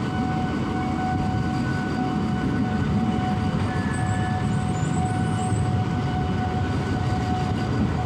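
Passenger train running through the station: a steady rumble of wheels on the rails with a constant whine, and brief faint high squeals about halfway through.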